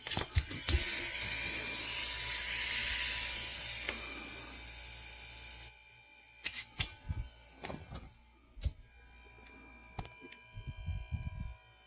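Jun-Air Model 3-4 air compressor running with a loud air hiss over a low hum; both cut off abruptly about six seconds in. A series of sharp clicks and knocks follows.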